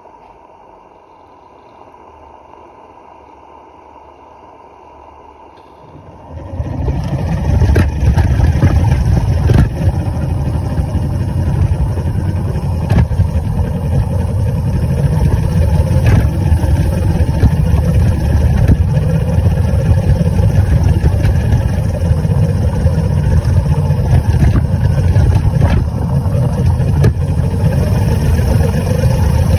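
Maxitrak 3/4-inch-scale live-steam Sentinel DG6 steam wagon, heard from on board, quiet at first and then setting off about six seconds in. From there it gives a loud, steady rumble with many small clicks as it trundles along over paving.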